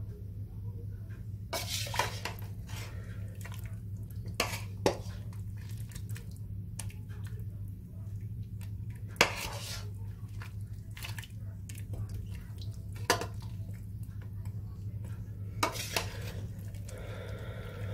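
Metal spoon clinking and scraping against the side of a stainless steel stockpot of simmering chicken broth, with several sharp clinks spread through, and some brief sloshing of the liquid. A steady low hum runs underneath.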